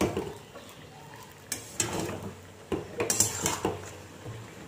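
A metal spatula scraping and knocking against a large metal pot as pieces of chicken curry are stirred and turned in their released juices. The strokes come irregularly, with a quick run of knocks about three seconds in.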